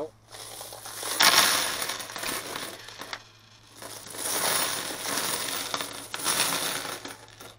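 Coins being dumped out of a plastic tub onto a wooden tabletop, pouring out in two long spells with a short lull about three seconds in.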